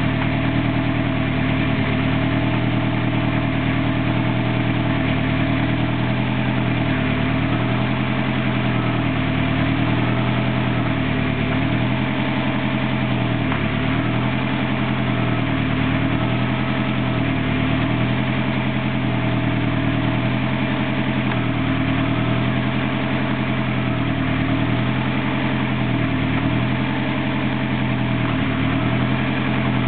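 BMW E30 engine idling steadily, with a slow, regular waver in its note.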